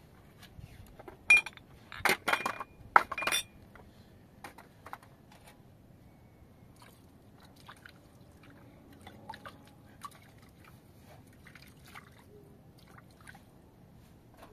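Glass tea glasses clinking against each other and the metal tray, a handful of sharp ringing clinks about one to three seconds in. Then faint water pouring and dripping from a kettle over the tray.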